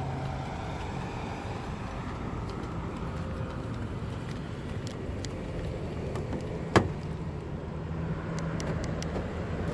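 Steady outdoor traffic and engine hum, with one sharp click about seven seconds in: the Hyundai sedan's power door locks working from the key fob.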